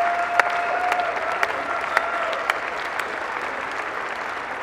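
Crowd applauding the announced winner, with sharp individual claps standing out from the steady clapping. A long held note runs through the first half, and the applause eases slightly toward the end.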